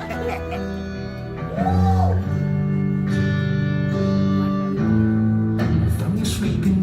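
Live guitar playing held chords, a slow stripped-down song intro, the chords changing every second or two.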